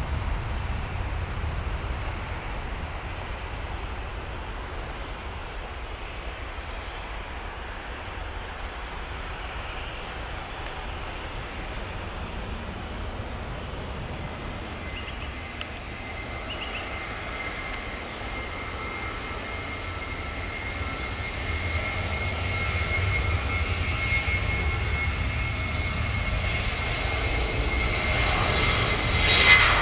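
Jet airliner engines: the low rumble of a departing Airbus A320 fades away, then about halfway through the steady high whine of a Boeing 737's jet engines comes in and grows louder. A short sharp crack sounds just before the end.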